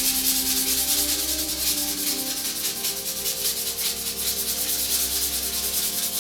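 Fine sandpaper (about 220 grit) rubbed back and forth by hand over a screwdriver's wood-inlaid handle, in quick, even strokes, with background music.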